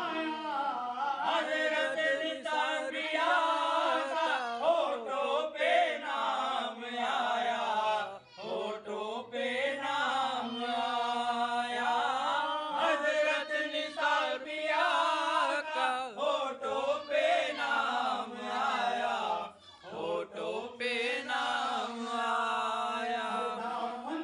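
A man singing a devotional Sufi song in praise of a saint (manqabat) into a microphone, in long, wavering held notes, with two short breaks about 8 and 20 seconds in.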